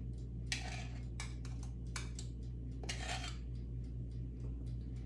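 A metal measuring spoon scooping baking powder from its can and clinking against the can and a stainless steel mixing bowl: several light clicks and a couple of short scrapes.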